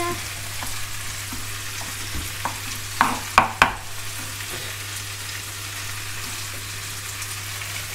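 Sliced red onion frying in sunflower oil in a pan on a low gas flame, a steady sizzle, with three short knocks about three seconds in.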